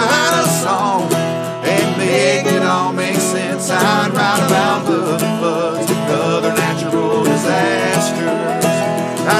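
Bluegrass string band playing live: acoustic guitar, mandolin, fiddle and dobro together, with gliding melody lines over steady plucked chords.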